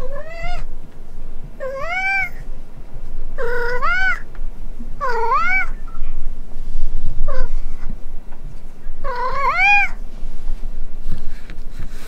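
Tabby-and-white domestic cat meowing repeatedly, six calls in about ten seconds, each rising and then falling in pitch, one of them short. The cat is calling for its absent owner.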